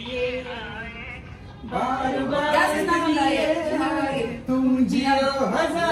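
A group of people singing a birthday song without instruments. One voice is heard at first, and the others join in, louder, a little under two seconds in.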